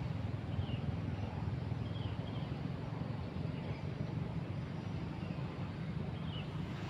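Outdoor ambience: a steady low rumble throughout, with a few short high bird chirps about half a second in, around two seconds in, and again near six seconds.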